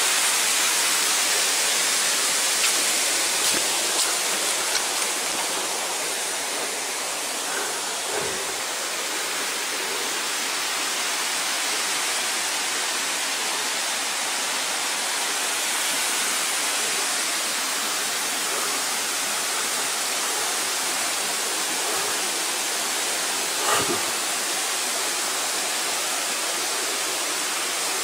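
Waterfall and its rocky stream rushing steadily: a constant, even roar of falling and running water.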